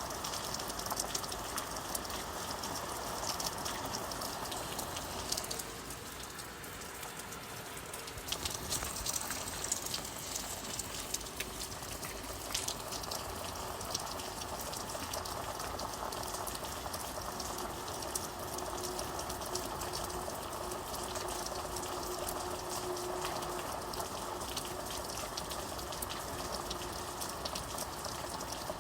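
Steady heavy rain, a dense hiss with fine crackling drop impacts.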